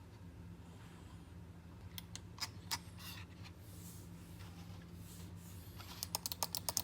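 Sharp plastic clicks, like the buttons of a Razer Basilisk X HyperSpeed gaming mouse being pressed: four clicks about two to three seconds in, then a fast run of about eight clicks near the end, over a faint steady hum.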